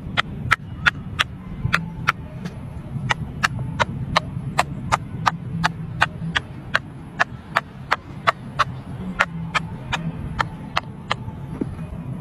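Silicone pop-it fidget toy bubbles being pressed in one by one, each giving a short sharp pop, about three pops a second in a steady rhythm.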